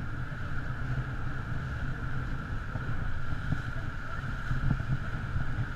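Motor raft under way on the river: a steady outboard-motor drone with a low rumble, and wind buffeting the bow-mounted GoPro's microphone.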